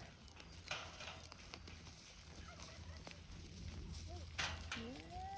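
Farm animals calling: two short harsh calls, then near the end a drawn-out call that rises in pitch and levels off.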